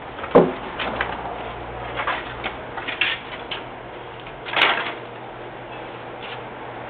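A series of irregular knocks and clatters: a sharp knock just under half a second in, several lighter ones through the next few seconds, and a longer, louder clatter at about four and a half seconds, over a faint steady hum.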